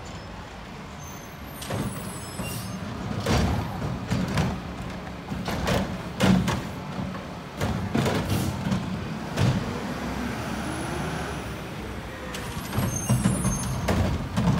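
Mack garbage truck's diesel engine running as it drives up and pulls to a stop, with repeated clanks and rattles from the body and can arm and air brakes hissing.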